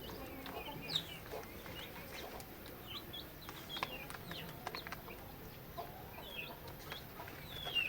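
Hens clucking and calling, with many short high chirps scattered throughout and a few light knocks.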